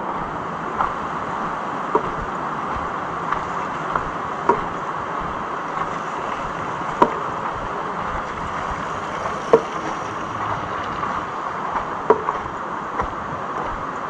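Steady rush of flowing water, with a short sharp click every second or two.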